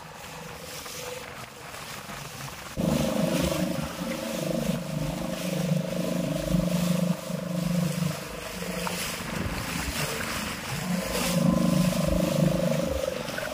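Motorboat engine running steadily under wind and water noise. It comes in much louder about three seconds in, and its steady pitch briefly drops out a few times as the boat pitches over the waves.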